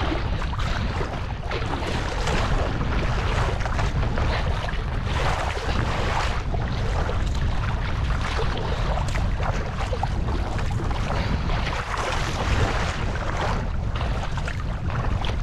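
Wind buffeting the microphone, with water splashing and lapping around a kayak on open water.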